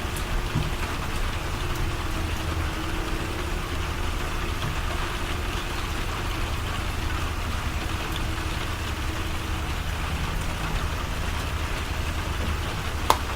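Steady rain falling, an even hiss of drops, over a low steady hum. A single sharp click near the end.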